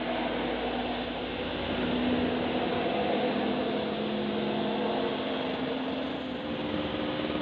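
Tour bus's diesel engine pulling up a steep climb under load, a steady drone with a held low hum.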